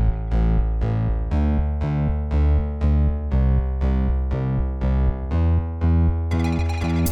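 Background music: synthesized keyboard and piano notes over a strong bass beat, struck in a steady rhythm of about two notes a second.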